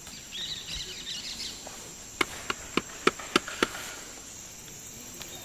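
Rainforest insects keeping up a steady high buzz, with a short burst of high chirping in the first second or so. In the middle comes a quick run of about six sharp knocks, the loudest sounds here.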